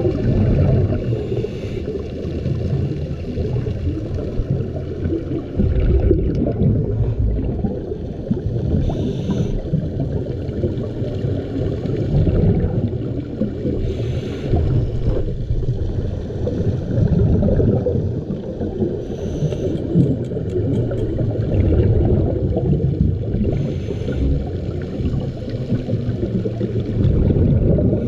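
Underwater sound through a camera housing: a steady, muffled rumble of moving water, with a scuba diver's regulator breaths and exhaled bubbles hissing out about every five seconds.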